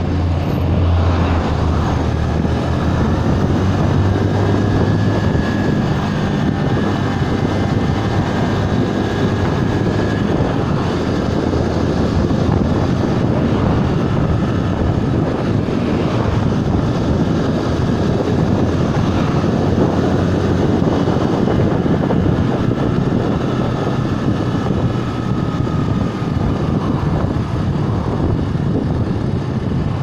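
Bajaj Boxer BM 125 X motorcycle's single-cylinder four-stroke engine running steadily under way at town speed, mixed with constant wind and road noise rushing over the microphone.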